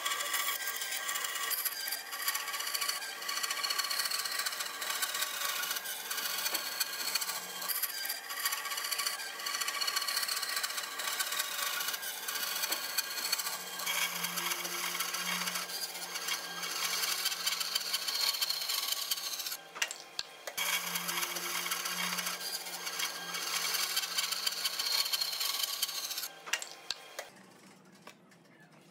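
A woodworking tool working hardwood: a steady, noisy working sound with a short break about two-thirds of the way through, stopping about two seconds before the end.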